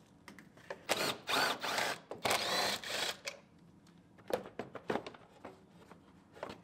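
Cordless power driver running in two short bursts of about a second each, then a few light clunks.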